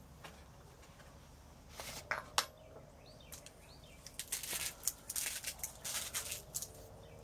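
Bursts of scraping and clicking close to the microphone, the loudest about two seconds in and a cluster in the second half, with a few faint bird chirps in the background.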